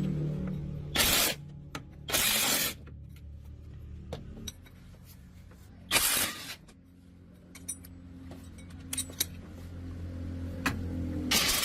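Workshop sounds: four short hissing bursts, each about half a second long, over a low steady hum, with scattered light clicks and clinks.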